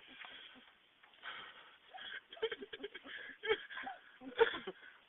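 People's breathy wheezing gasps and short bursts of laughter, irregular and growing busier about halfway through, as after chugging a beer.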